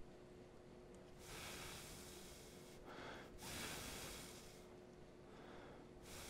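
A person's faint breathing: about three slow breaths of soft hiss with pauses between them, over a faint steady hum.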